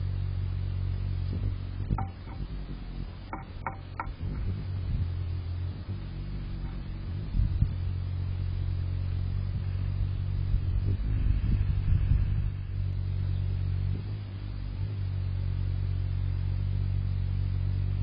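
Hummingbird's wings humming in a low, steady buzz as it hovers at the feeder close to the microphone, with a few light clicks near the start.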